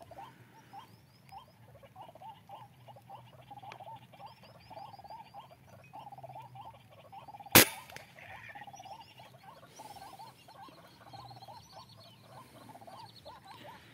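A single rifle shot, sharp and sudden, about seven and a half seconds in, over a steady background of repeated animal calls.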